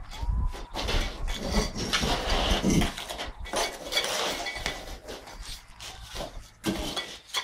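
Irregular clinks, knocks and scrapes of metal hand tools on cement and metal, with a low rumble through the first three seconds.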